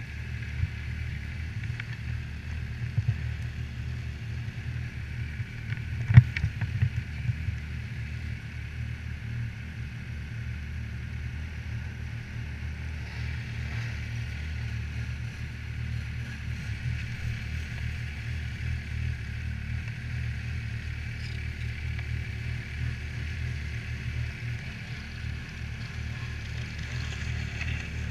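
Yamaha Viper snowmobile's four-stroke three-cylinder engine idling steadily, with one sharp knock about six seconds in.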